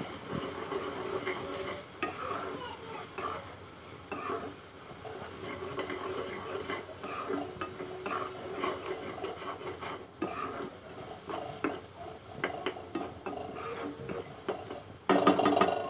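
A spatula scrapes and stirs a thick onion-tomato-spice masala in a non-stick kadhai, the masala sizzling over the gas flame, with frequent small knocks of the spatula against the pan. About fifteen seconds in there is a short, louder burst.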